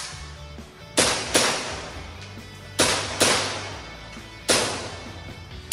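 Airsoft pistol shots fired in quick pairs: two double taps about a second and a half apart, then a single shot near the end, each with a short ringing tail, over background music.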